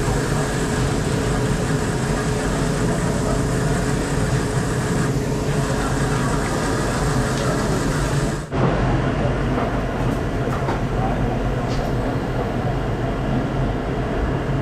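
Steady rumble of a running train, broken by a sudden cut about eight and a half seconds in, after which it carries on.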